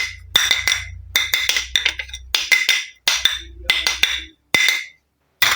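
Miniature toy kitchenware pieces clicking and clinking together in quick clusters, each tick with a short bright ring, about eight clusters in a row.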